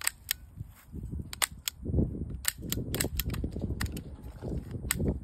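Toy cap gun revolver worked over and over, giving about a dozen sharp, irregularly spaced snaps as the trigger is pulled to bring the cylinder round to the capped chamber. A low rumble runs under the snaps from about a second in.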